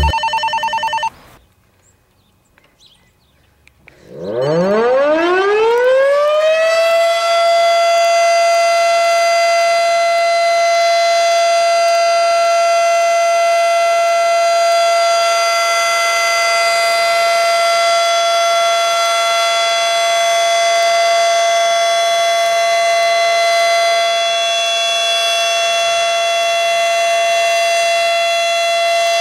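Federal Signal Model 7 outdoor warning siren starting up for a test. It winds up with a rising pitch for about three seconds, then holds one steady, loud, high tone.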